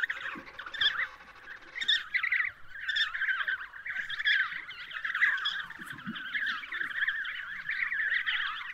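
A colony of African penguins calling: many short calls overlapping without a break.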